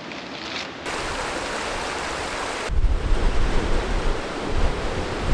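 Steady rush of a desert stream's water and wind through the fan palms, an even hiss; from about three seconds in, wind buffets the microphone in low rumbling gusts.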